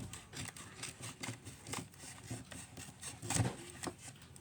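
Scissors snipping open a package, a run of short irregular cuts and rustles of the packaging, with a louder rustle about three and a half seconds in.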